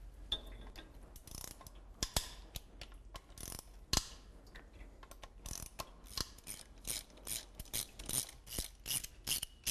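Hand ratchet clicking as it backs out the bolts holding an engine's water pump. Scattered clicks at first, then an even run of about three clicks a second in the second half.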